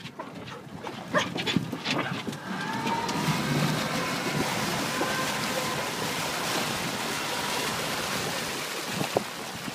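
Steady rushing of water churned up alongside a moving boat, building up about two and a half seconds in, after a few short sharp knocks.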